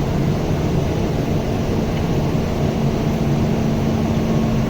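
Steady drone of running machinery with a constant low hum and no knocks or strikes.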